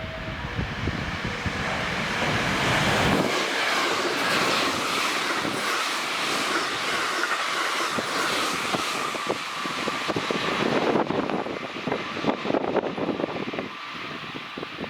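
Express train passing through a station at speed without stopping: a rising rush of wheel and air noise, then, near the end, quick clicks of the wheels over the rail joints as the last cars go by.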